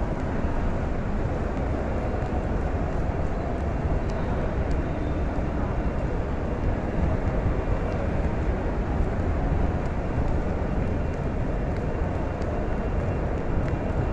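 Steady, dense din of a large crowd of pilgrims moving and murmuring, with a heavy low rumble and no single voice standing out.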